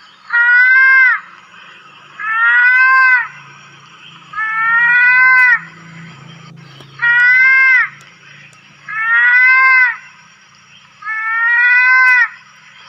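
Mouse-deer (kancil) call: a short, high, pitched call that rises then falls slightly, repeated about six times at an even spacing of roughly two seconds.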